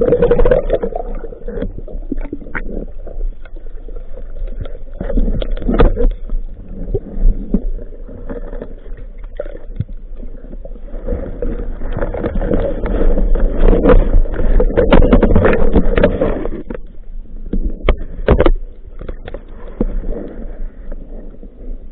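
Muffled water sloshing and gurgling, with scattered clicks and knocks. It grows louder for several seconds about halfway through, then eases off.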